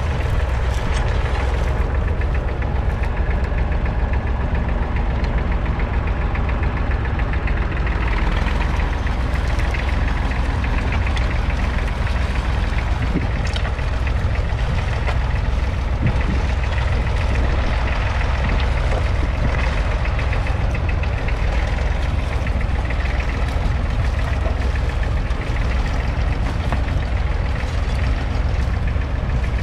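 1963 Fordson Dexta's 2.4-litre three-cylinder diesel engine running steadily under load, pulling a two-furrow mounted plough through the soil.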